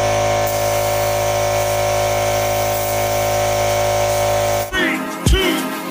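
A power tool's motor running at one steady pitch, stopping about three-quarters of the way through as upbeat music with a funk beat starts.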